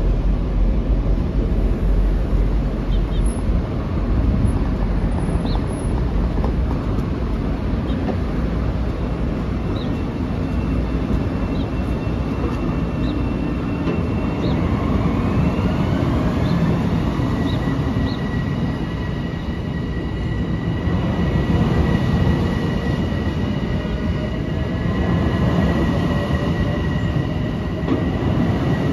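Metro-North M7A electric multiple-unit train pulling out and accelerating: a steady low rumble of wheels and running gear, with a few faint ticks. About halfway through, the electric traction motors' whine rises in pitch and then holds at a steady high pitch.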